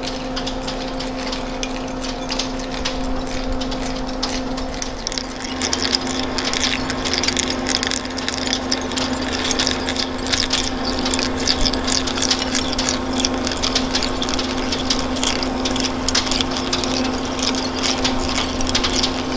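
Lathe running with a steady hum while a 1-5/8-inch taper-shank twist drill cuts into a spinning steel hydraulic rod. About five seconds in, a deeper rumble joins and a dense crackle of breaking chips runs on.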